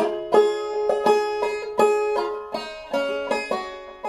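Open-back banjo played clawhammer style in 2/4 time: a run of sharply plucked notes that ring and fade.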